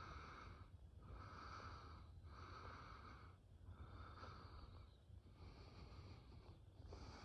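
Squirrel barking: a faint, steady series of nasal calls, roughly one a second, each lasting most of a second.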